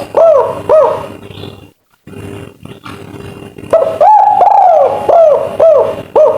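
Spotted dove cooing. One phrase ends with two short arched coos near the start. About three and a half seconds in, a full phrase follows: one long drawn coo and then three short clipped notes, the three-note 'kuk 3' ending.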